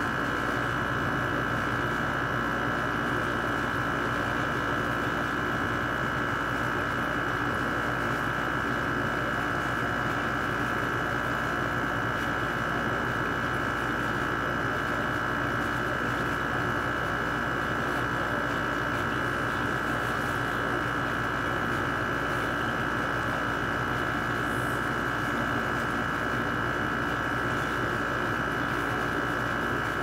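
LG 6,000 BTU air conditioner running with its compressor on: a steady, unchanging hum and whir with a thin high tone above it.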